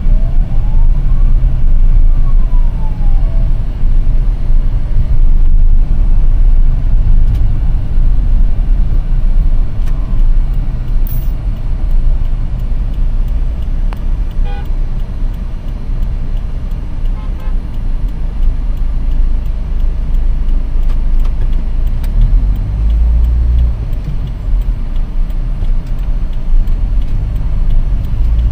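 Steady, loud low rumble of motor vehicles, with a brief tone that rises and then falls in the first few seconds.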